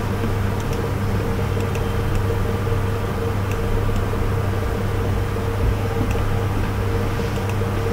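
Steady low electrical or mechanical hum with an even hiss, with a few faint clicks scattered through it.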